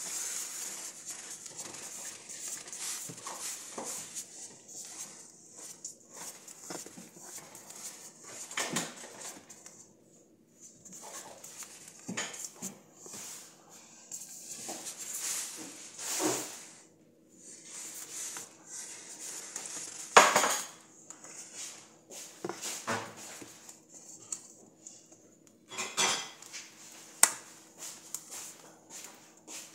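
A spoon spreading tomato sauce over pizza dough in a round metal pan: soft, irregular scraping strokes with a few sharp clinks of the spoon against the pan, the loudest about twenty seconds in.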